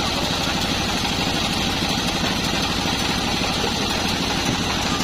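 Engine of a homemade bandsaw mill running steadily, with an even low pulse.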